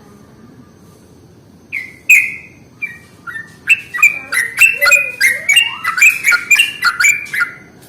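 Yellow-vented bulbul (trucukan) calling loudly. A few separate notes come about two seconds in, then a fast run of bubbly chattering notes for about four seconds.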